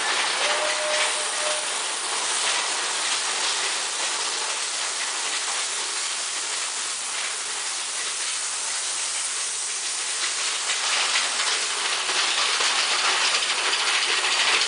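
Big Thunder Mountain Railroad mine-train coaster running along its track, under a steady rushing hiss from waterfall spray.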